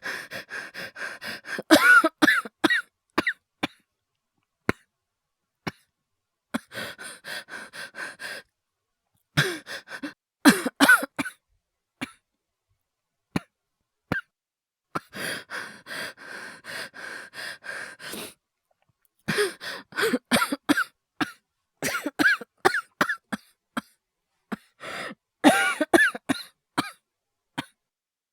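Acted coughing by a voice actor: four fits of several harsh coughs in quick succession, broken by long, strained breaths with a whistling wheeze, performed as an asthma attack.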